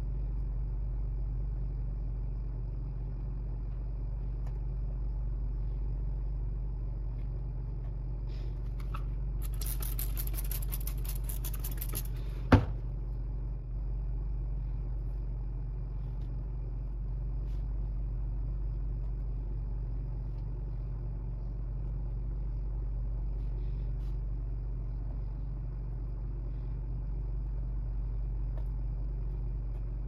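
A steady low hum, with a few seconds of fine, dense high crackling starting about nine seconds in and a single sharp click just after twelve seconds.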